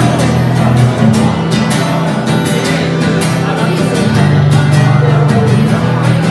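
Swedish pop song, an instrumental passage with a steady beat and sustained bass notes between sung lines.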